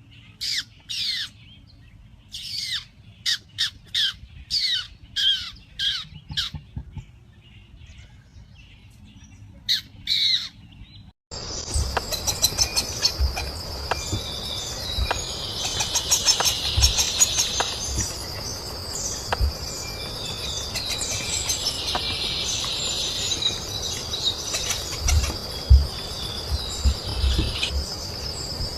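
Bird calls: a run of short, downward-sliding calls, about one or two a second. Then, after a sudden cut about eleven seconds in, a different recording brings a steady high whine under two long, harsh, noisy calls.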